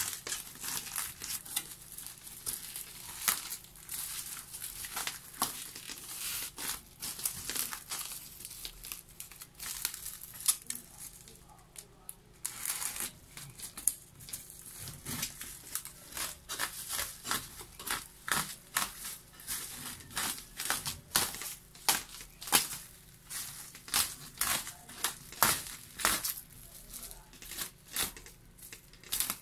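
Black bubble wrap and plastic film crinkling and rustling as they are pulled and peeled off a parcel, in a dense run of irregular crackles with a brief lull about twelve seconds in.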